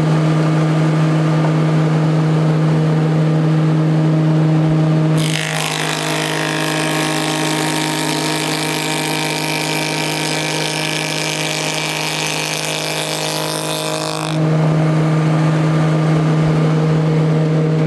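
Table saw spinning a moulding head, running free with a steady hum. About five seconds in, the cutter bites into a wooden board and a dense cutting noise covers the hum for about nine seconds while the moulded edge profile is cut. Then the saw runs free again.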